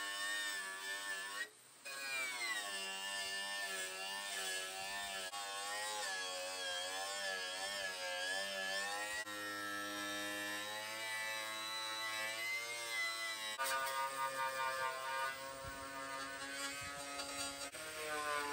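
Angle grinder running against the sheet steel of a car tailgate, stripping paint and rust, its whine sagging and recovering in pitch as it is pressed into the metal. It cuts out briefly about a second and a half in, then spins back up.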